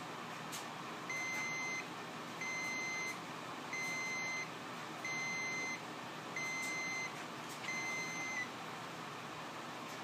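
An electronic beeper sounding six times in a steady rhythm, each beep a single high tone lasting under a second, about one every second and a half, stopping a little before the end. Under it runs a steady hiss.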